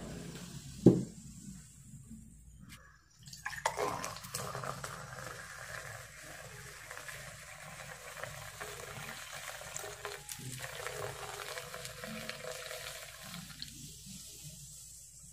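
Carbonated soda poured in a thin stream from a height into a glass, splashing and fizzing as it fills. The pour starts about three and a half seconds in and tails off near the end. There is a single sharp knock about a second in.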